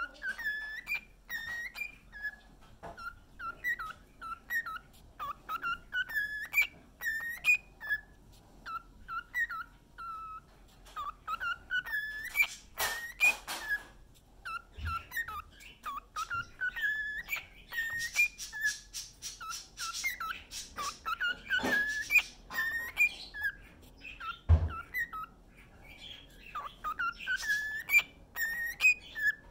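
Cockatiel singing: a long run of short, chirpy whistled notes, many rising in pitch, repeated in phrases with brief pauses. A few sharp clicks, and one dull thump about five seconds before the end.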